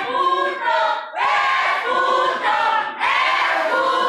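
Crowd of wrestling spectators yelling together in loud, high-pitched bursts about a second long, one after another.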